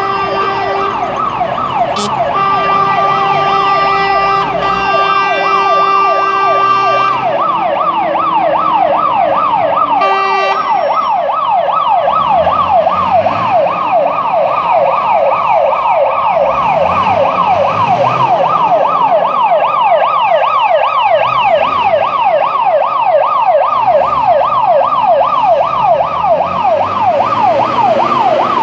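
Fire engine's siren on a fast repeating yelp. For the first seven seconds, and briefly again about ten seconds in, air horns blast long steady tones over it.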